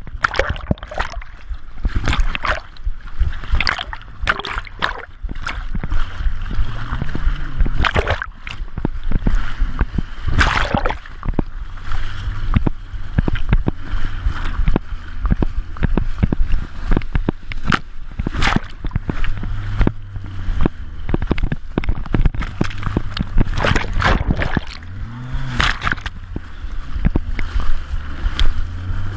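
Water splashing and sloshing against a sailing International Moth dinghy in irregular bursts, with a low steady drone underneath.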